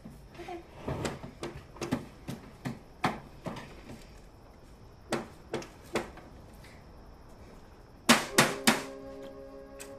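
Irregular sharp knocks and taps on a tabletop. Near the end come three loud strikes in quick succession, followed by music with sustained notes.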